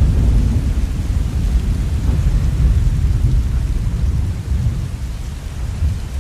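Steady rainfall with a low rumble of thunder that gradually fades away.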